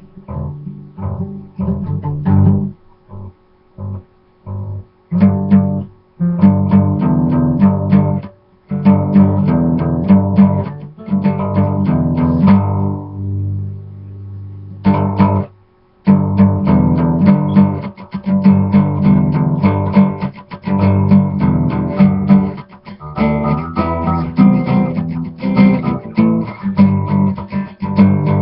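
Guitar played solo: a few separate plucked notes at first, then continuous picking. About halfway through a note rings out and fades, there is a brief stop, and the playing starts again.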